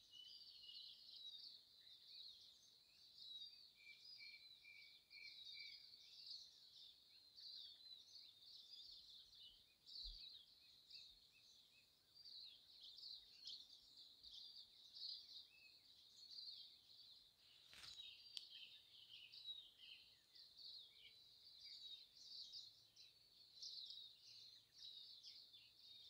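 Faint, continuous chorus of small birds chirping high-pitched, with a short run of lower repeated notes from another bird a few seconds in and a single faint click about two-thirds of the way through.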